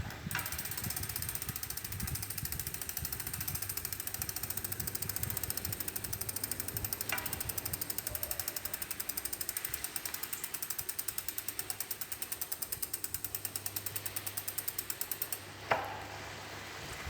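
Triban RC520 road bike's freehub ticking fast as the wheel coasts, stopping about 15 seconds in. Three sharp pings that fall in pitch, near the start, about 7 seconds in and just after the ticking stops, are the spoke noise the owner suspects comes from poor-quality spokes. Decathlon calls the noise normal.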